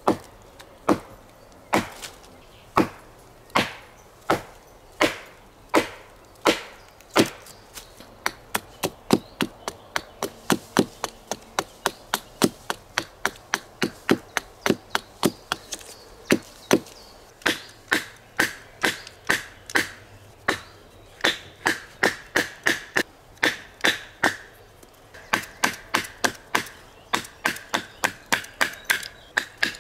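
Small axe chopping into a short, upright piece of wood on a log, hewing it thinner with chips flying. The blows come about once a second at first, then quicken to about two a second. From about halfway on, each blow carries a ringing knock.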